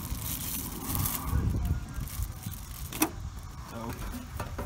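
Handling noise from a paracord bracelet and a plastic-wrapped item being unpacked, with a sharp click about three seconds in, over a steady low rumble.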